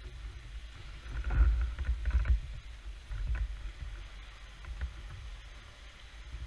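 Water slapping and sloshing around a fishing kayak, with a few low rumbling bumps between about one and two and a half seconds in as the landed fish is handled against the camera.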